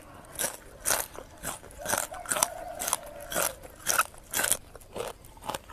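Close-miked biting and chewing of crisp raw vegetables, about a dozen irregular wet crunches.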